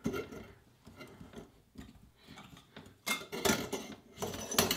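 Chrome sink drain fittings clicking and knocking as a slip nut is turned by hand on the extension tube and the P-trap is handled. The clicks are faint at first, then come as a quick run of sharp metallic clicks from about three seconds in.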